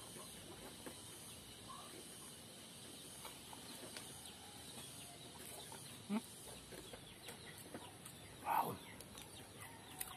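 Faint chewing and mouth sounds of a man eating raw oysters and rice with his fingers. A short louder mouth sound comes about six seconds in, and a louder, falling voiced sound about two-thirds of the way through.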